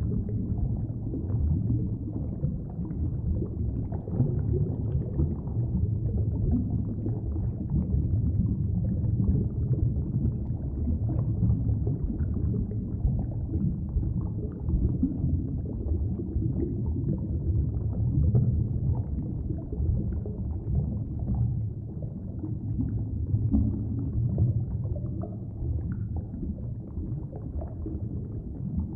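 Underwater ambience: a steady, muffled low rumble of water with faint flickers of bubbling.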